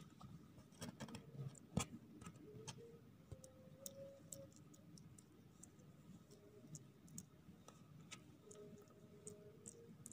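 Near silence broken by faint, scattered clicks and scratches from two-week-old kittens shuffling over a blanket in a cardboard box, with one sharper click about two seconds in.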